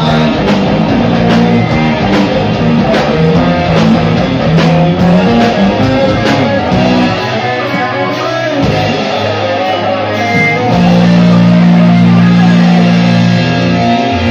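Live rock band playing loud, led by electric guitar with a drum kit. The drum strokes drop out a little past halfway, and near the end long sustained low notes ring out louder.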